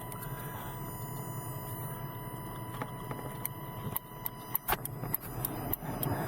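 A newly fitted turn-signal flasher relay clicks, starting about three and a half seconds in, over a steady low hum from the truck. The clicking is at a rate that sounds like the LED hyper-flash has been cured.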